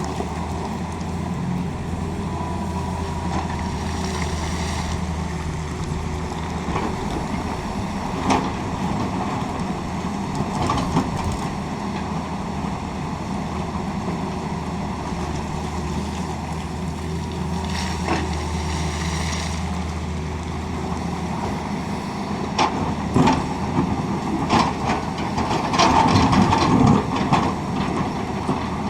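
Tata Hitachi excavator's diesel engine running steadily under load, with a brief high whine twice and knocks and scrapes from the bucket working the ground, the clattering loudest near the end.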